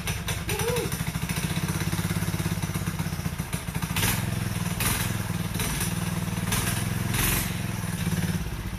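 Honda 160cc single-cylinder four-stroke engine on a homemade stand-up scooter, running just after starting with a fast, even chugging beat. It gets louder in a few short bursts about four to seven seconds in.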